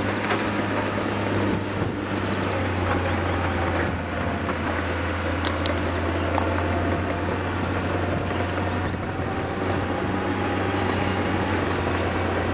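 Diesel engines of a tracked bulldozer and excavators running steadily as they spread and flatten rubbish, a constant low drone. In the first few seconds a run of short high chirps sits above it.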